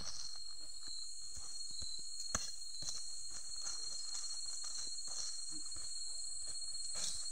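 Night insects trilling steadily in a high, continuous drone. Over it come soft scrapes and light knocks of a metal digging tool working loose soil, with one sharper knock a little past two seconds in.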